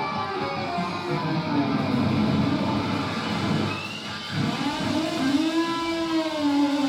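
Live hard rock band playing, electric guitar to the fore, with long held notes that bend in pitch.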